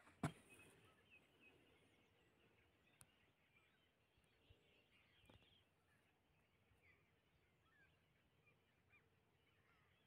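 Faint, scattered chirps and twittering of small birds. One short, louder sound comes right at the start.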